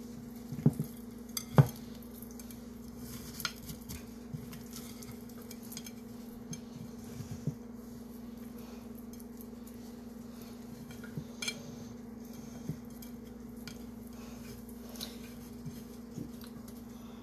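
Hands pressing and patting seasoning onto a raw beef roast on a ceramic plate: scattered light clicks and knocks against the plate, the two sharpest about a second in, over a steady low hum.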